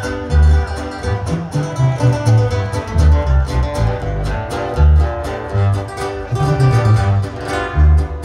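Live regional Mexican band playing an instrumental stretch of a corrido: acoustic guitar strumming and drums over deep, pulsing sousaphone bass notes.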